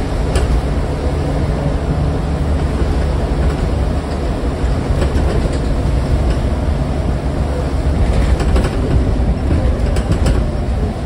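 Scania N94UD double-decker bus heard from the lower deck while under way: a steady low diesel engine and drivetrain rumble, with a few sharp clicks and rattles from the body and fittings.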